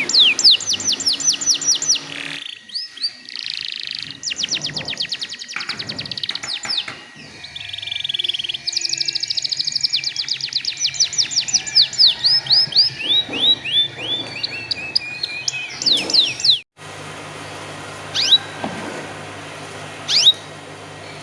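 Domestic canary singing: fast rolling trills and runs of repeated falling high notes, phrase after phrase. About three quarters of the way through the song cuts off abruptly, leaving a steady low hum with a few single high chirps.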